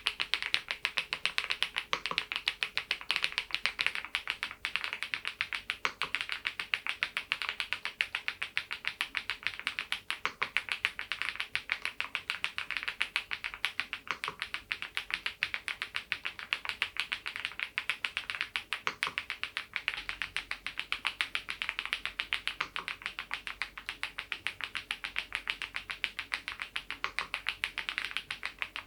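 Continuous fast typing on a Geekstar GKG87R tenkeyless mechanical keyboard: a dense, steady stream of key clicks.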